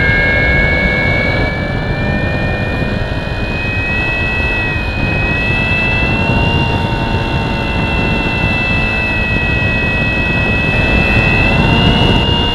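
A model plane's motor and propeller whining steadily with a high pitch that creeps slightly upward, heard from an onboard camera, with wind rushing over the camera.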